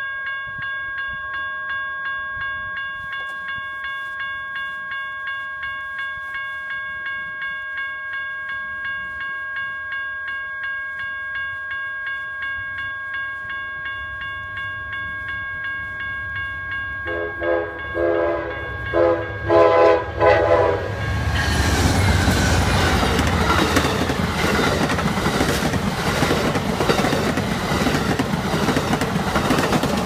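A grade-crossing bell rings steadily, about two strokes a second. About seventeen seconds in, the Amtrak locomotive's horn sounds in several blasts. Then the California Zephyr passes close by with loud wheel noise and clickety-clack over the rail joints.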